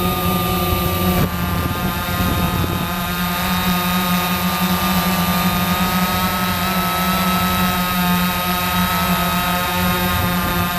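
Quanum Nova quadcopter's brushless motors and propellers whining steadily, heard from a camera on board, with wind hissing over the microphone. About a second in the whine shifts and dips briefly, then settles again, with one pitch creeping slightly upward.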